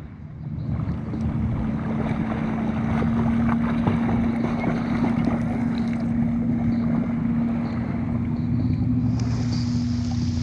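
River water splashing and sloshing right at a camera held at the surface, busiest in the middle as a swimmer thrashes past. A steady motor hum runs underneath.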